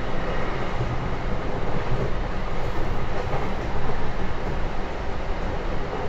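Running noise of a JR Kyushu 813 series electric multiple unit heard from inside the car: a steady, even rumble of wheels on rail and running gear as the train travels.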